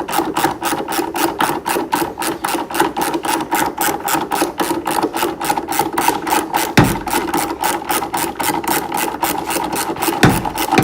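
Ratchet wrench clicking steadily, about five clicks a second, as a bolt is backed out. Two low thumps come about seven and ten seconds in.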